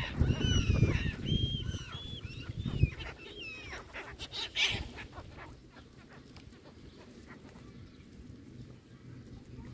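Birds chirping in quick, repeated short calls for the first three seconds, then a few light taps as feral pigeons peck at bread held in the hand.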